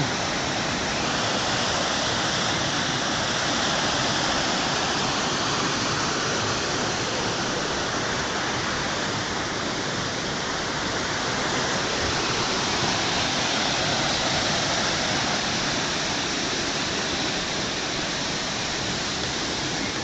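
Shallow stream rushing over boulders in small cascades: a steady, even rush of water.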